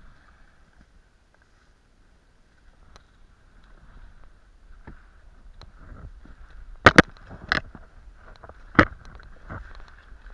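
Inflatable boat being rowed close along a bank of dry grass: faint rustling and brushing, then four sharp knocks in the second half, the first two close together.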